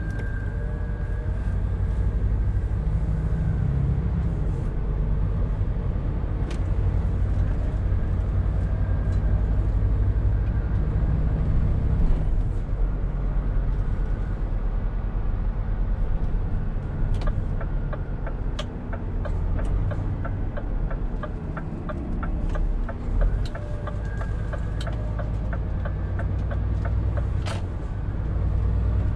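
Scania R520 truck engine running on the move, its low note swelling and easing with load. Past the middle a regular rapid ticking starts and runs for about ten seconds.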